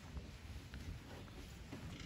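A few faint footsteps over a low, steady room rumble.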